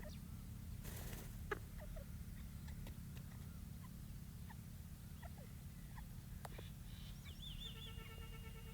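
Young partridge (francolin chicks) giving faint, short, squeaky peeping calls, scattered irregularly over a steady low hum. Near the end a steady pitched tone with a warbling start comes in and holds.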